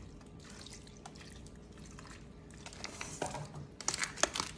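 Beef broth poured from a can into a foil pan of vegetables, trickling and dripping. From about three seconds in, aluminium foil crinkles and crackles as the pan is handled, the loudest sound near the end.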